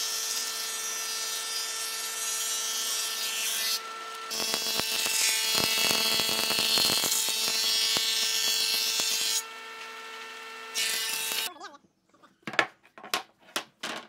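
Thickness planer running with a steady whine and a rushing cutting noise as boards feed through its cutter head. It grows louder while a board is being cut and falls back to a quieter hum between boards. The noise stops abruptly about eleven and a half seconds in, followed by a few sharp wooden knocks as planed boards are set down on a table.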